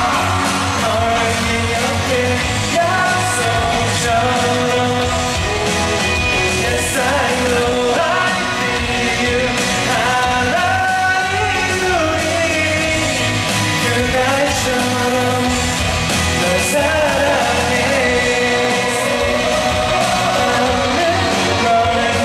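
A man singing a song live into a handheld microphone over instrumental accompaniment, amplified through a concert sound system.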